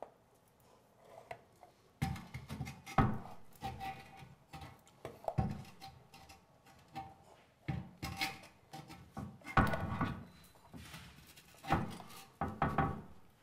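Irregular knocks, thuds and scrapes of a urinal being pushed and shifted onto its wall hanger and rubber drain connection, starting about two seconds in.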